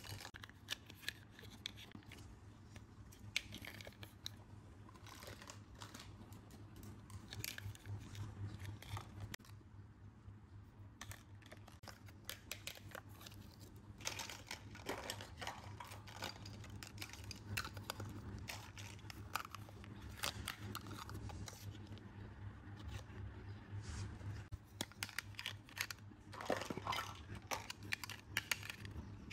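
Small plastic toy kitchen pieces clicking and clattering as they are picked up and handled, with some crinkly rustling; the clicks come thicker in the second half. A low steady hum runs underneath.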